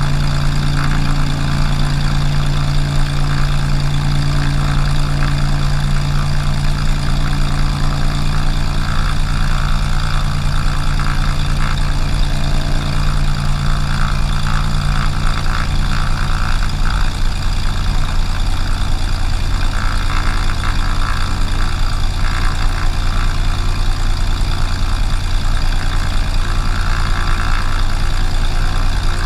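Cessna 182's single piston engine and propeller running at a steady idle just after start-up.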